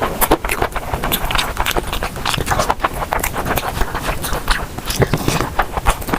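Close-miked eating: chewing and crunching food, a dense run of irregular wet crackles and clicks.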